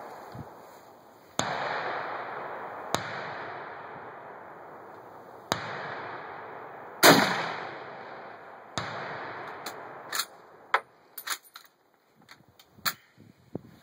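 Mosin-Nagant bolt-action rifle (7.62x54R) firing: two loud shots about six seconds apart, each trailing off in a long echo, with fainter cracks between them. Near the end comes a quick run of sharp clicks.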